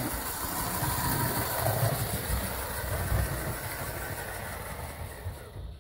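O gauge model N7 tank locomotive, with a new ABC Maxon-motored gearbox, running fast along the track: a steady motor and wheel hum that slowly fades as it pulls away.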